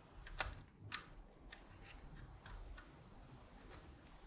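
Faint clicks and ticks of a DIP chip being handled and its legs pushed into an IC socket on a circuit board, with two sharper clicks about half a second and a second in.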